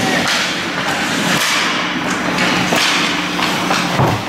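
Ice hockey play at close range: skates scraping the ice, with several sharp knocks and clacks of sticks, puck and boards, over a steady low hum.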